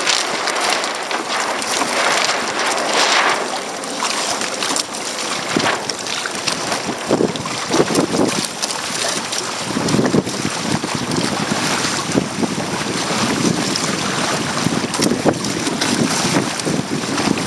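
Wind buffeting the microphone over the rush and splash of choppy water against the hull of a Hobie Tandem Island sailing kayak under way under sail.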